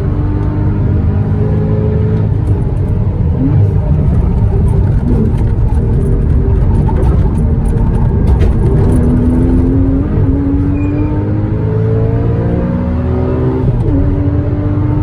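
Porsche Cayman S 981's 3.4-litre flat-six accelerating hard, its pitch climbing through the revs and jumping abruptly at gear changes about three and a half, ten and fourteen seconds in.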